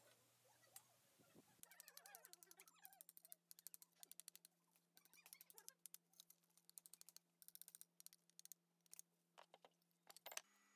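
Faint runs of rapid light clicks and taps from metal tools being handled and tapped on the bench, with short pauses between the runs.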